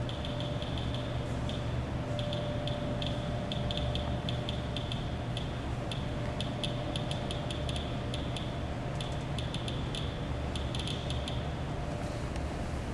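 Handheld radiation detector clicking in short chirps at an irregular, random pace, several a second and bunching at times, as it picks up radiation from the radium-laced Revigator pottery through the display glass.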